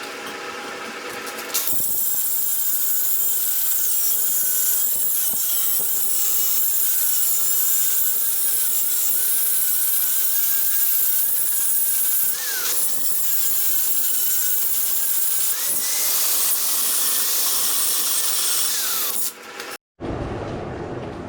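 Grinder grinding hard-facing weld off a steel core barrel: a harsh grinding hiss over the motor's whine, which wavers and dips in pitch as the disc is pressed in. It starts about two seconds in and stops shortly before the end.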